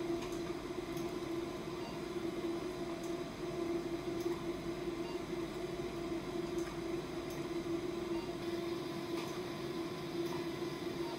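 Steady mid-pitched electrical hum from an RF microneedling machine, with faint sharp clicks every second or two as the needle handpiece is pressed and fired against the skin.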